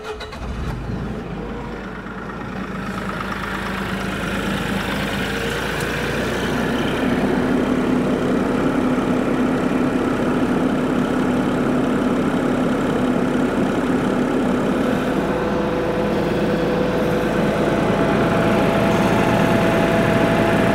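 Bobcat E42 compact excavator's diesel engine running at idle right after start-up, growing louder over the first several seconds and then steady. It is running to purge air from the freshly refilled hydraulic system through a bleed tube into the tank.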